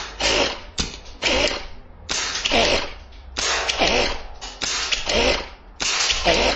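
A 3D-printed airsoft rifle's plastic pump action being worked over and over in a regular rhythm, about once every second and a quarter. Each stroke is a sharp click followed by a short sliding rattle.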